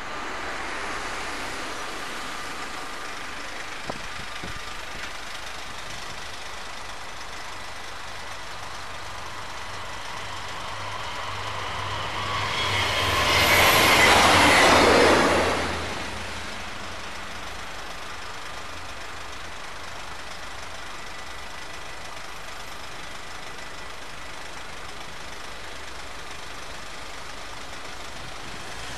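A regional train passing a level crossing at speed: its noise builds from about ten seconds in, is loudest for a couple of seconds, then dies away quickly. Level-crossing warning bells ring steadily underneath.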